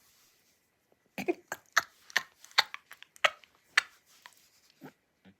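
A person laughing quietly and breathlessly in a run of short bursts, about two a second. The bursts start about a second in and thin out near the end.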